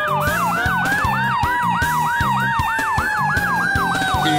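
Fire truck siren on yelp: fast rising sweeps, about four a second, with a second long siren tone slowly rising and then falling. Background music with a steady beat plays underneath.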